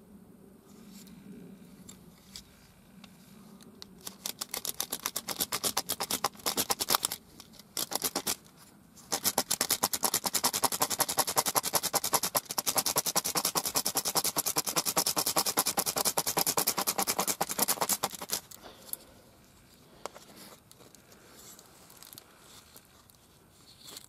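Rapid, even scraping of a wooden arrow shaft being worked back and forth through a hole in a sizing gauge to shave it down to diameter. The strokes run for about three seconds, break off briefly, then run on for about nine seconds before stopping, with quieter handling before and after.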